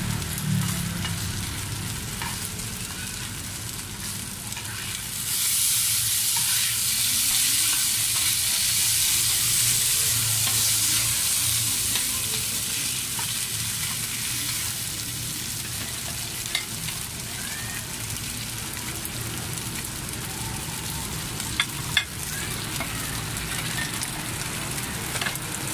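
Food sizzling as it fries in hot oil in a pan at a street-food cart. The sizzle gets louder about five seconds in and eases back after about fifteen seconds. A couple of sharp clicks come near the end.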